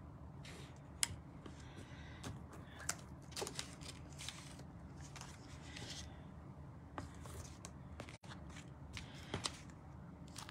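Faint paper handling: cardstock and die-cut paper pieces rustling and sliding, with a few light taps and clicks scattered through.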